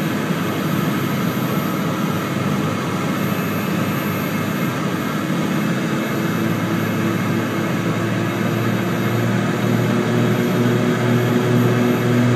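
Cabin noise of a Cessna 414's twin piston engines and propellers on final approach: a steady drone, with a low pulsing hum that grows stronger through the second half.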